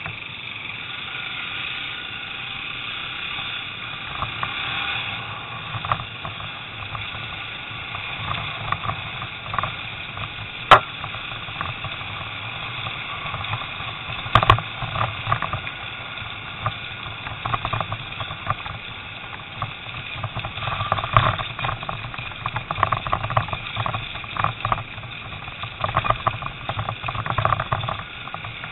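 Off-road trail motorcycle running as it is ridden along a rough, muddy lane, with rattles and sharp knocks from the bumps; the loudest two knocks come about 11 and 14 seconds in.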